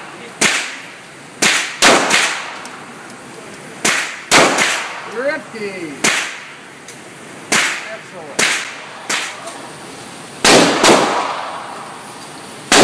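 Semi-automatic pistol shots, about a dozen at irregular intervals, some in quick pairs, each echoing off the walls of an indoor shooting range.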